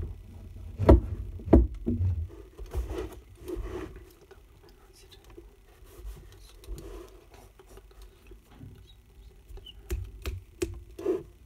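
Pen and paper handling on a desk: a cluster of knocks and bumps on the desk top in the first two seconds, then softer scratching and rustling as a pen writes in a test booklet, with a few more knocks near the end.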